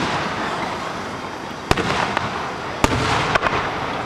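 Fireworks bursting overhead: two sharp bangs a little over a second apart, followed by a quick run of crackling pops, over a steady rumble of the display.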